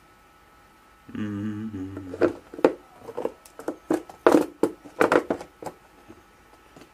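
A brief low hum, then a quick, irregular run of sharp clicks and snaps from hand tools working on motorcycle wiring.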